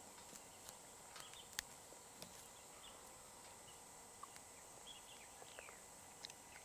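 Near silence: faint outdoor ambience with a steady high hiss, scattered small ticks and a few short high chirps.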